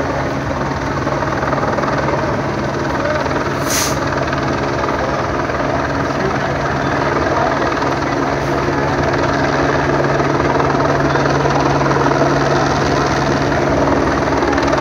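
Police helicopter flying in overhead, a steady drone of rotor and engine that grows a little louder toward the end, over a low steady hum. A short sharp click about four seconds in.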